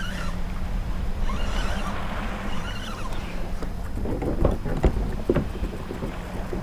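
Open-water background on a fishing kayak: water slapping the hull and wind on the microphone over a steady low hum, with a handful of sharp knocks and clicks from about four to five and a half seconds in as the angler works a spinning reel against a hooked fish.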